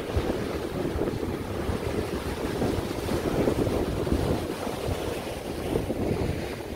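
Sea surf breaking and washing over the boulders of a rock breakwater: a continuous rushing that swells and eases, loudest a little past halfway as a wave crashes into the rocks. Wind buffets the microphone throughout.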